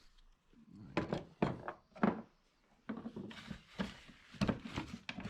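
Irregular metal clicks, taps and knocks from snap ring pliers and screwdrivers working at a small snap ring on a drum brake's lever pin: a few sharp knocks in the first two seconds, then a denser clatter from about three seconds in.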